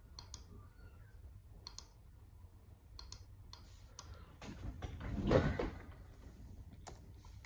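Scattered single clicks of a laptop's trackpad button and keys as a pointer is worked through a menu, with one louder rushing or rustling sound lasting about a second a little past halfway.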